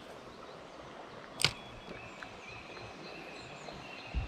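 A spinning reel during a cast, with one sharp click about a second and a half in, as the bail is closed. A dull thump comes near the end, over steady outdoor background noise.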